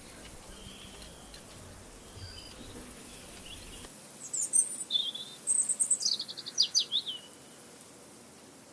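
Songbird chirping: a few faint calls, then about four seconds in a burst of high chirps and quick falling notes lasting about three seconds. Beneath it is a faint, steady outdoor ambience.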